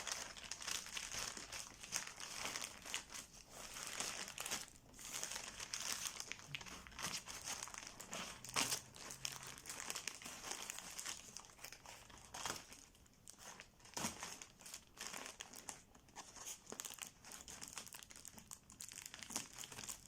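Parcel packaging being crinkled, rustled and torn open by hand, in uneven bursts of crackling with a few sharper snaps.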